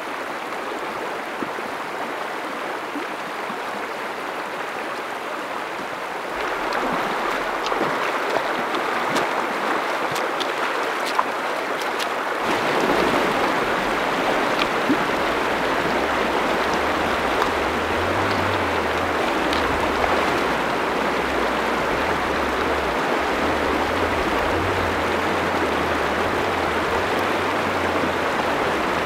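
Shallow mountain river rushing over a stony bed, a steady roar of water that grows louder about a quarter of the way in and again before the middle, with a few faint clicks.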